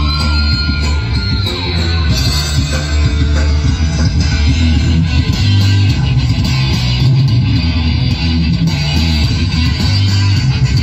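Guitar-led rock music with a heavy bass line, played loud through large stacked sound-system speakers.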